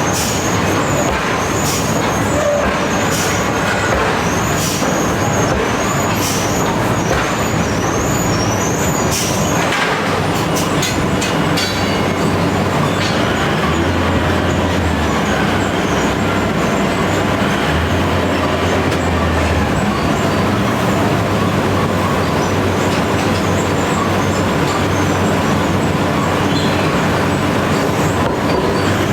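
Heavy machinery striking iron: a steady machine drone under sharp metallic strikes about once every second and a bit, then a quick run of strikes about ten seconds in.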